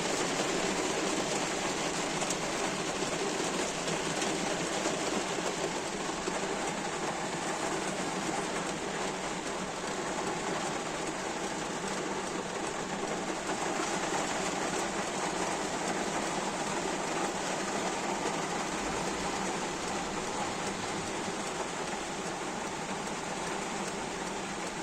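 Heavy rain drumming steadily on a car's roof and windows, heard from inside the car.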